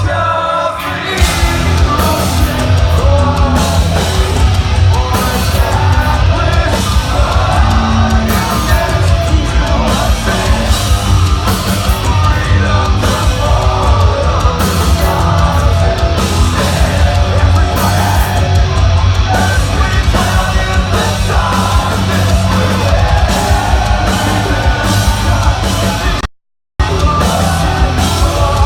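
Heavy metal band playing live at full volume, with sung and shouted vocals over heavy, dense instruments that crash in about a second in. The sound cuts out completely for about half a second near the end: a dropout in the recording.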